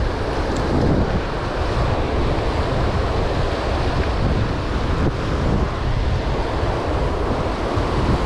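Steady rush of white-water river rapids, with wind buffeting the microphone.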